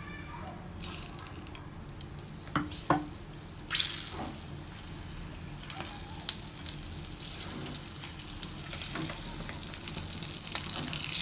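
Masala-stuffed green chillies going one by one into smoking-hot mustard oil in a non-stick frying pan, sizzling and crackling, with a few sharp taps early on as they are laid in. The sizzle starts about a second in.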